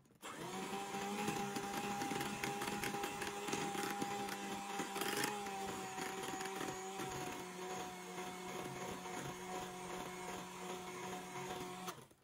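Electric kitchen appliance motor, such as a blender or food processor, switched on and running steadily at one speed for about twelve seconds, then switched off just before the end.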